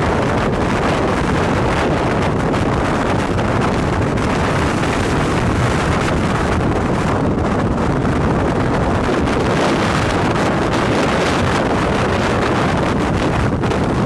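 Strong storm wind from a tornado buffeting the microphone: a loud, steady rushing noise.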